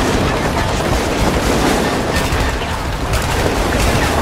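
Battle sound effect laid over the picture: a steady heavy rumble with a few sharp gunshots, about two seconds in and again just after three seconds.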